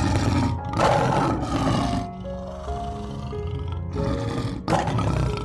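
A tiger growling and roaring in several rough bursts: one at the start, a long loud one about a second in, and two short ones near the end. Soft background music plays underneath.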